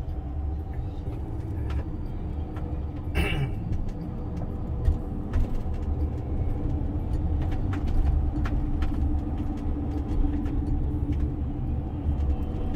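Steady low rumble and hum of a car's engine and tyres, heard inside the cabin while driving slowly along a town street.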